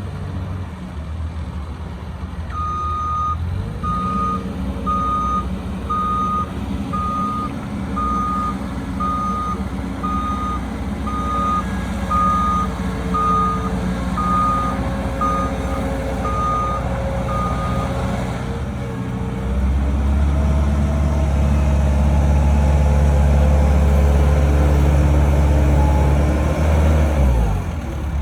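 Caterpillar 242B skid steer running, its backup alarm beeping about once a second for some fifteen seconds. Later the engine gets louder and heavier for several seconds, then drops back near the end.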